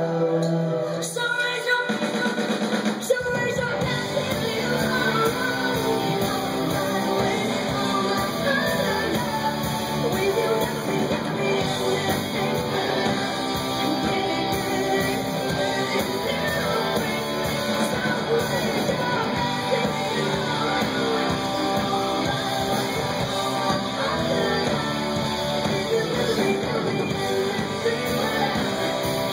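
Live rock band playing: a woman sings over electric guitars, bass and drum kit. The first few seconds are thinner, and the bass and drums come in fully about three seconds in.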